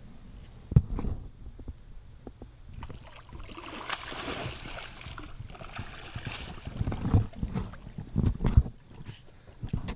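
A hooked catfish thrashing and splashing at the water's surface for a few seconds in the middle, after being reeled in to the bank. Low thumps and bumps from the rod and camera being handled come near the start and again toward the end.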